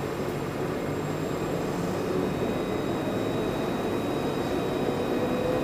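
Interior of a Luas tram running along a street: a steady rolling rumble with a faint whine that rises a little in pitch from about halfway.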